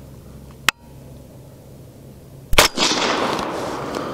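A sharp click about two-thirds of a second in, then a shot from a suppressed 6.5 Grendel AR-15 about two and a half seconds in, its report trailing off over about a second and a half.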